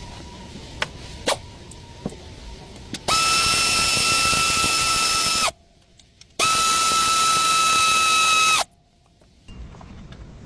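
A power drill runs twice with a steady high whine, each run about two and a half seconds, its pitch dipping slightly as it stops. A few sharp clicks come before the first run.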